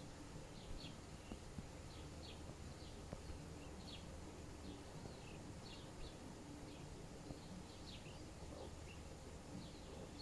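Pāteke (brown teal) ducklings peeping: short, faint, high falling peeps, about one or two a second at irregular intervals, over a steady low background hum.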